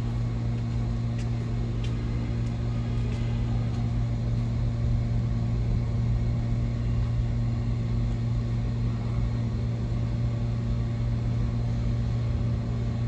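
New York City subway train with a steady low hum and rumble, and a few faint clicks in the first few seconds.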